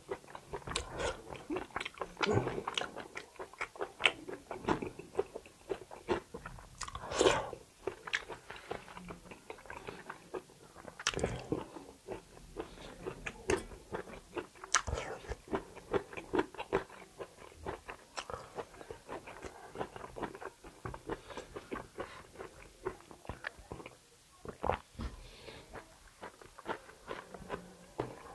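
Close-miked mukbang eating: chewing and biting into kalij pheasant meat from a curry. Wet mouth smacks and many short sharp clicks come at an irregular pace, with a few louder bites.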